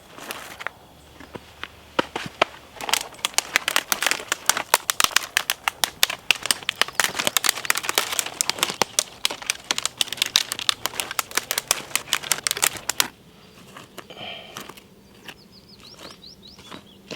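Dense, rapid crackling and crinkling of dry material for about ten seconds, stopping abruptly. A few faint high chirps follow near the end.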